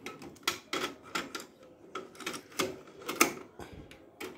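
Clicks and clunks of a Kenwood KX-W893 double cassette deck being worked by hand: the cassette door opened, a tape loaded and the door and transport buttons pressed. The sound is an irregular run of about a dozen sharp clicks, the loudest about half a second, one and a quarter, two and a half and three and a quarter seconds in.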